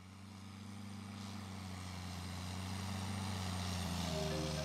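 A low, steady engine drone fades in and grows louder. A few short music notes come in near the end.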